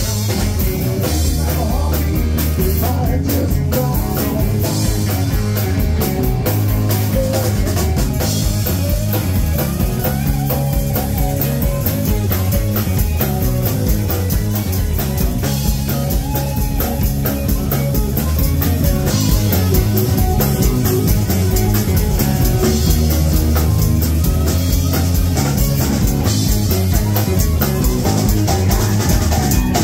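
Live rock band playing a blues-rock number: a Les Paul-style electric guitar over bass and drum kit.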